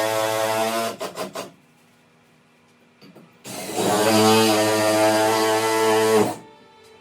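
Power drill driving screws into wood, running steadily in two bursts: one ending about a second in, then a few short clicks, then a second run of about three seconds.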